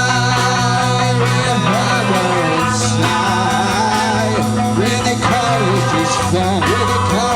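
Rock band playing live: bass and electric guitar under a bending melodic line, with drums keeping a fast, even cymbal beat.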